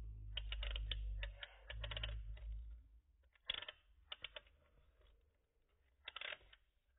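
Irregular plastic clicking and rattling from a wind-up pinwheel fan pen being handled and wound by hand, with a low handling rumble through the first three seconds. Later come a few short bursts of clicks.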